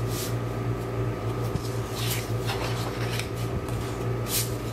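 Sheets of scrapbook paper rustling and swishing as they are handled and flipped through, with a few louder swishes, over a steady low hum.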